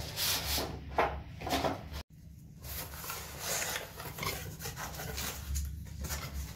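Cardboard boxes being handled: a small box slid out of a larger carton and its flaps pulled open, making scraping and rustling strokes that are loudest in the first two seconds. The sound cuts out for an instant just after two seconds in.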